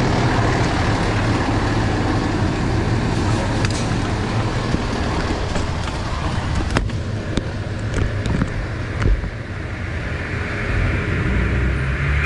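Fire truck's diesel engine running, heard from on board as a steady low drone under a dense rumble, with a few sharp knocks and rattles about seven to nine seconds in.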